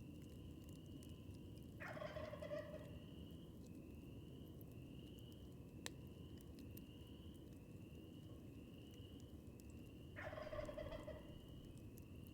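A wild turkey gobbling twice, a short rattling gobble about two seconds in and another about ten seconds in. Underneath runs a steady high chirp repeating about twice a second and the low hiss of a campfire, with one sharp pop near six seconds.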